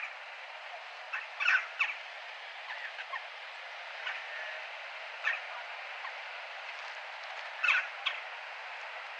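Crow cawing in short, harsh calls every second or two, loudest about a second and a half in and again near the end, over a steady hiss of town background noise.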